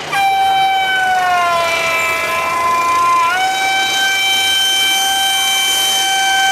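Vehicle air horn blaring long and loud, several tones at once. Its pitch sags a little over the first three seconds, then jumps back up and holds steady.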